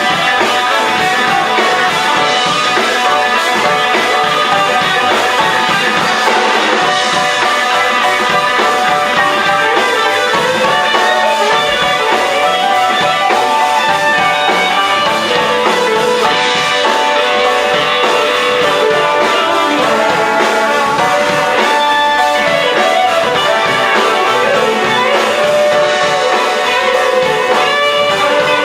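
A live band playing an instrumental stretch with no singing, an electric guitar out front over bass, drums and keys.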